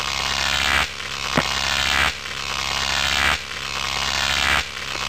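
Electric crackling and buzzing sound effect that swells and drops in repeated pulses about every second and a quarter, with a sharp crack about one and a half seconds in, over a steady low hum.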